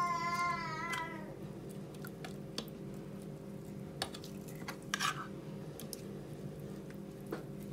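Faint clinks of a metal spoon against a china plate and soft handling of marinated fish and shrimp, over a steady low hum. A held, wavering voice-like tone fades out in the first second or so.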